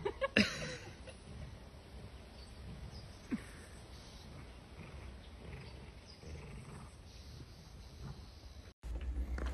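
Two dogs play-fighting, with a short sharp yelp about half a second in and faint growling through the scuffle.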